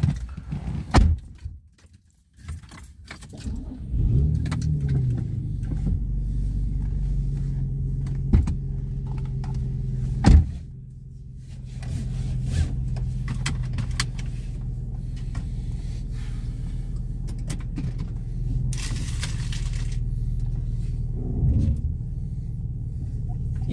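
Keys jangling, then a car engine starts about four seconds in and runs with a steady low hum. A single sharp thump comes near the middle.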